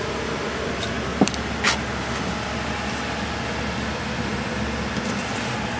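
Steady rushing hum of airliner cabin noise inside a Boeing 787's crew rest bunk compartment, even in level throughout, with a couple of small clicks a little over a second in.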